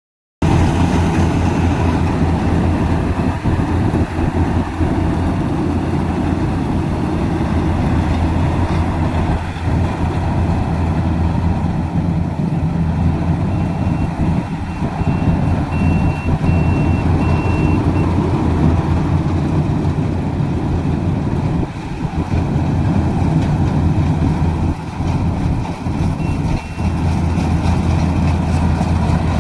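Yanmar AW70GV combine harvester running steadily, its diesel engine giving a loud, constant low hum. A few short, faint high beeps sound about halfway through.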